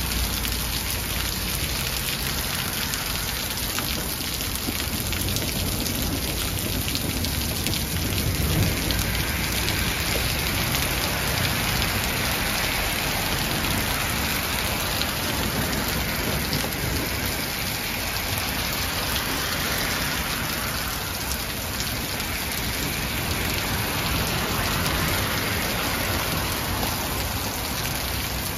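Hailstorm: hail mixed with rain pattering steadily and densely on the ground and patio.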